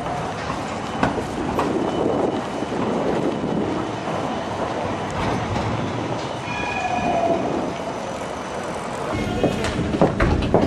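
Tram running on street rails, heard from inside the car: a steady rumble and rattle, with a brief high wheel squeal about six and a half seconds in and a deeper rumble with knocks near the end.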